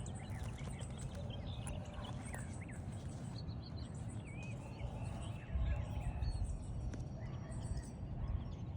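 Steady outdoor wind rumble on the microphone, with a few short bird chirps.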